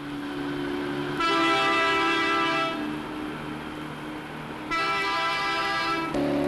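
Diesel locomotive horn sounding two long blasts, each about a second and a half, over the steady low drone of the Fell locomotive No. 10100's diesel engines as she pulls away on her first trial run.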